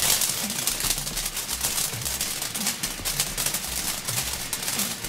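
TNT Sparkling Nights firework going off with a dense, rapid crackle, over background music.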